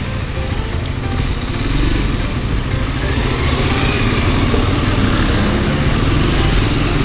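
Motorcycle engine running under way with steady wind rush, getting a little louder about two seconds in.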